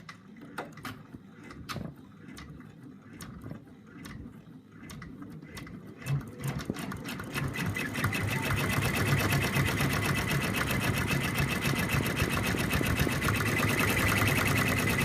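Embroidery machine stitching out a small design, the bird's eye in black thread. It gives a few separate clicks at first, then picks up about six seconds in to a fast, even stitching rhythm that grows louder and holds steady.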